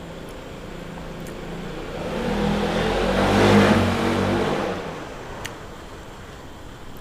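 A motor vehicle passing by: its engine swells to a peak about three and a half seconds in, then fades away.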